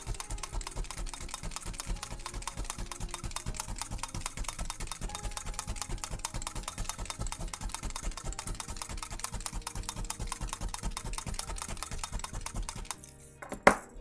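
Clover multi-needle felting punch tool stabbing rapidly and steadily into wool on a felting mat, a fast patter of pokes. The pokes stop about a second before the end, followed by a single sharp knock as the tool is set down.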